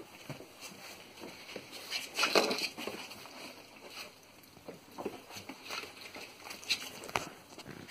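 Boxer puppy's paws and claws scrabbling and pattering on tile and fleece bedding, with small clicks throughout and a louder scuffle about two seconds in.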